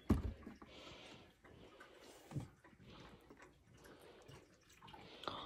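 Faint taps and clicks on a hard wood-grain tabletop as a small dog noses at a hard green-bean dog treat. There is a dull thump just after the start and another about two and a half seconds in.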